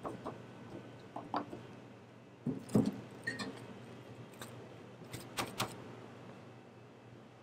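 Dough being pressed and patted flat on a wooden tray, with soft scattered knocks and a duller thump about three seconds in, then a clear plastic sheet crinkling a few times as it is spread over the dough.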